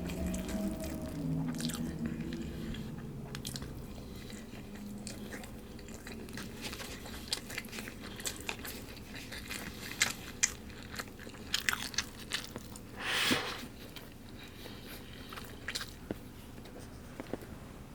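Person eating a karaage (Japanese fried chicken) and rice bento: chewing and biting with scattered small clicks, and one louder crunchy burst about two-thirds of the way through.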